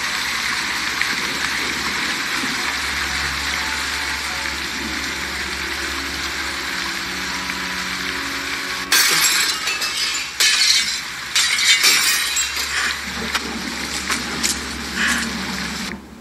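A glass window pane smashed about nine seconds in, followed by several seconds of crashing and clinking glass as the shards fall. Before the smash there is a steady hiss.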